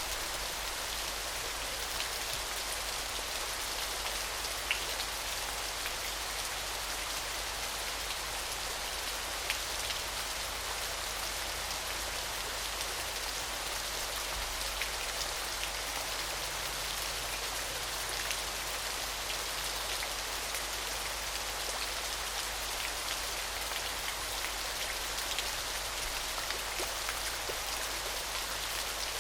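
Small waterfall splashing: a steady, even hiss of falling water with fine droplet patter and the odd sharper drip standing out.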